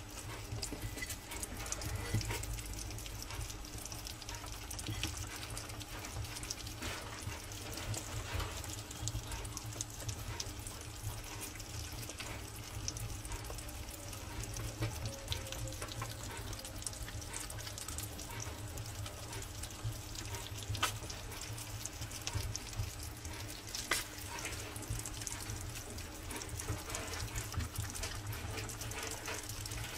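A group of hedgehogs eating wet minced food from one plate together: a steady, dense crackle of wet lapping, smacking and chewing. A steady low hum runs underneath.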